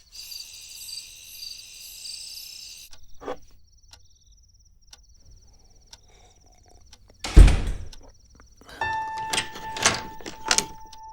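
Crickets chirping steadily, louder for the first three seconds, with a single heavy thud about seven seconds in; music begins near the end.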